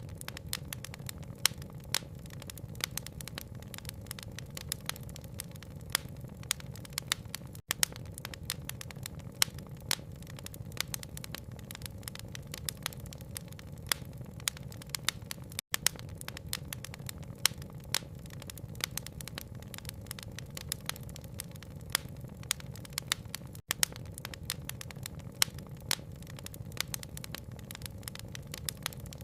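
Wood fire crackling, with frequent sharp pops and snaps over a steady low rumble of burning and a soft rain hiss. The sound cuts out for an instant about every eight seconds, where the loop restarts.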